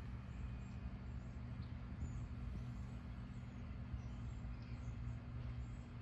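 A steady low mechanical hum, like a distant engine or motor, with a few faint high bird chirps scattered over it.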